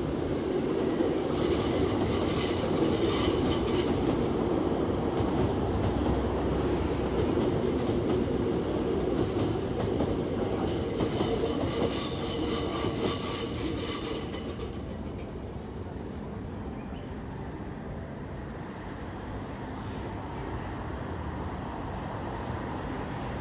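Red Tokyo Metro Marunouchi Line subway train running past on the tracks below, with high wheel squeal twice, a couple of seconds in and again from about ten to fourteen seconds in. The train noise fades about fifteen seconds in to a quieter steady background.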